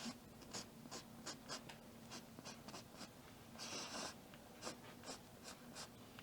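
Posca paint marker tip scratching across the painting in many short, quick strokes, with one longer stroke about four seconds in. A faint steady hum lies underneath.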